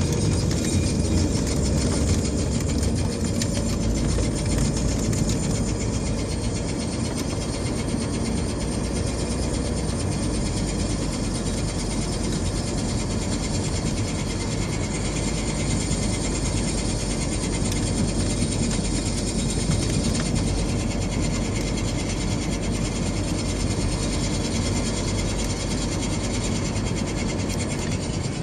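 A Chevrolet Sonic making a nasty mechanical clatter, a dense, rapid run of clicks that keeps up steadily without a break.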